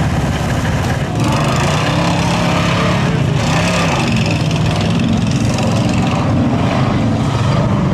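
Off-road vehicle engine running steadily under load as a pickup truck drives through a deep, water-filled mud pit, over a hiss of splashing water. The sound changes abruptly about a second in.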